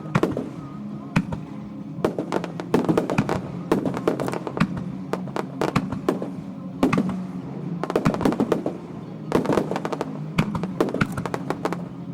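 Aerial fireworks crackling and popping in rapid clusters, in waves that swell and ease off several times, over a steady low hum.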